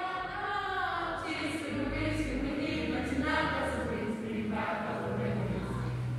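A group of voices singing a song together, over low sustained notes that change every few seconds.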